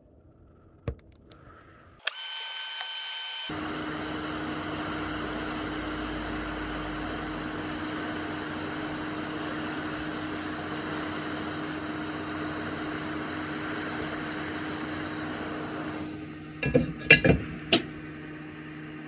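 Hot air rework station blowing: a steady rush of air with a low fan hum, coming on suddenly about two seconds in while it heats the rubbery underfill around the chip. Near the end the air drops lower and a few sharp clicks follow.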